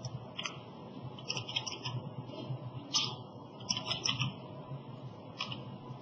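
Computer mouse and keyboard clicks, short and sharp, coming singly and in small clusters of two or three, over a steady low hum.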